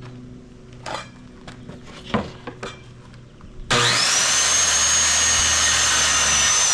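A few light knocks of wood being handled, then about four seconds in an electric power saw starts with a quick rising whine and runs steadily at full speed cutting a wooden board, its whine just beginning to fall at the end.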